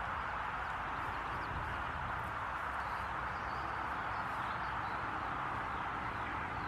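Steady background hiss with a few faint, short bird chirps.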